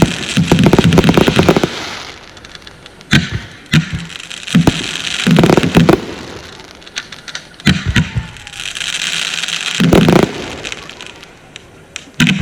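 Consumer fireworks going off: loud bangs, singly and in quick clusters every second or two, with crackling hiss after the bigger bursts.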